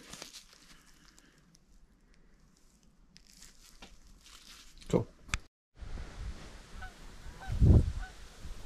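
Quiet rustling and handling of a bird carcass, with a couple of sharp clicks about five seconds in. It then cuts abruptly to wind buffeting the microphone, with geese honking faintly and repeatedly in the distance.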